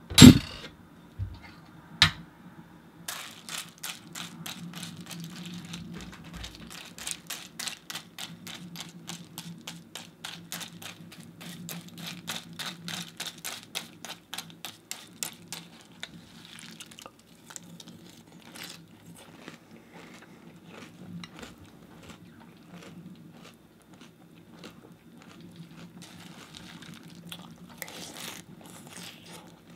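Close-up chewing of crunchy Cheerios cereal, a steady crunching at about three bites a second that thins out after the middle. Two loud knocks come near the start and about two seconds in.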